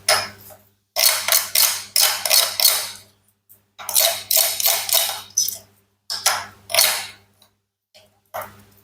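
Toy fruits and vegetables being cut, a run of quick, sharp cutting strokes in several bursts separated by short pauses.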